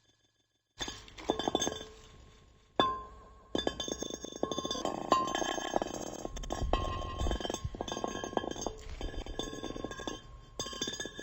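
Glass clinking and ringing: after a short silence, repeated light strikes of glass, each leaving a ringing tone, with one clear ringing strike about three seconds in and then a busy stretch of clinking glass.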